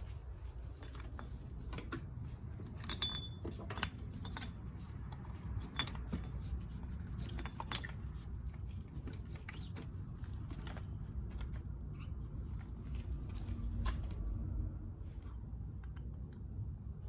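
Small metal parts being handled: scattered light metallic clinks and taps at irregular intervals, a few sharper ones about 3, 4 and 6 seconds in, over a low steady rumble.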